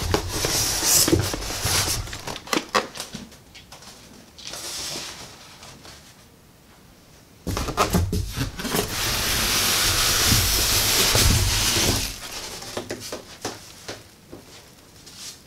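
Styrofoam packing inserts being lifted out of a large cardboard box, the foam scraping and squeaking against the cardboard. There is a burst of rubbing with a few knocks at the start, then a longer steady scraping a little past halfway.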